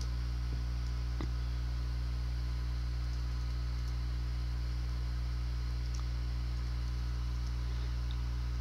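Steady low electrical hum with a stack of even overtones, with a few faint computer keyboard clicks about a second in and again near six seconds.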